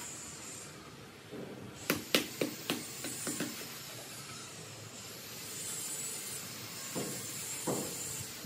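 Ceramic floor tiles clicking and knocking as they are handled and set into place: a quick run of about six sharp knocks about two seconds in and a few more near the end, over a steady high hiss.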